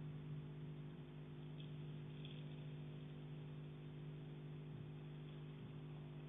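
A steady low hum made of several fixed tones, with faint brief high-pitched sounds about one and a half and two seconds in; no knocking is heard.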